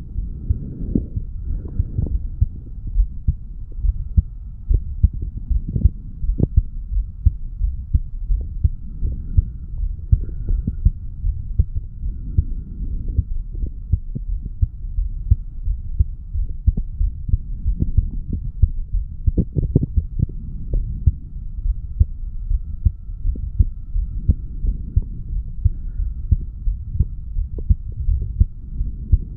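Human heartbeat picked up at the chest over the mitral valve area, a steady regular rhythm of low thumps, recorded just after lifting weights. A faint steady hum runs underneath.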